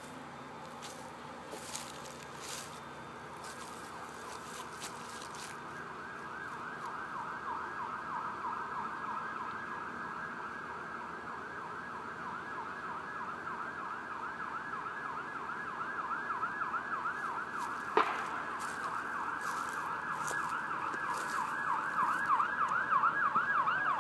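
Emergency vehicle siren in a fast yelp, its pitch sweeping up and down several times a second and growing steadily louder. There is a single sharp click about three-quarters of the way through.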